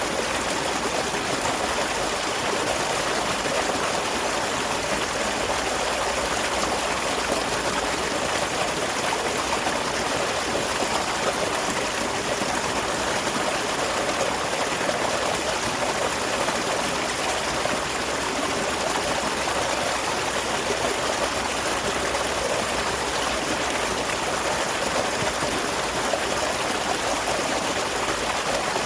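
Small waterfall splashing steadily, an even rush of falling water.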